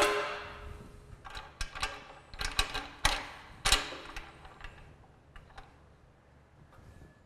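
Metal clicks and knocks from hands and tools working on a bandsaw's blade guide assembly. It opens with a loud clank that rings briefly, then gives a run of sharp clicks that thin out after about four seconds.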